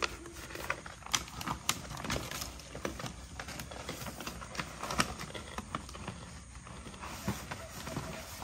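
A crinkly snack bag and a backpack being handled: irregular crackling and rustling as things are stuffed into and rummaged through the pack.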